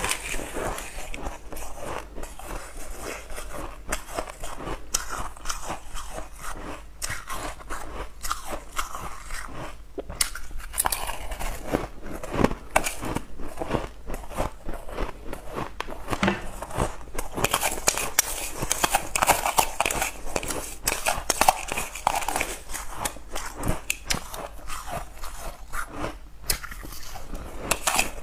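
Powdery ice being bitten and chewed close to a clip-on microphone: a dense, irregular run of crisp crunches and crackles throughout.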